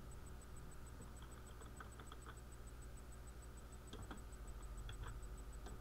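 Faint computer keyboard keystrokes, a few scattered clicks in two short runs, over a steady low hum.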